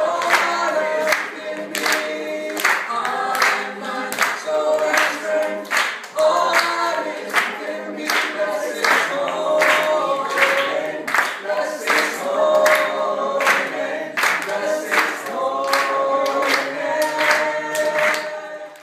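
A mixed group of adults and children singing a song together, with hand claps in time, about two a second.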